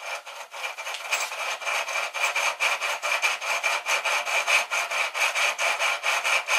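Line being pulled by hand off the free-spooling winch drum of an RC scale tractor: a fast, even rasping rhythm of the string running off the drum, with a steady high whine.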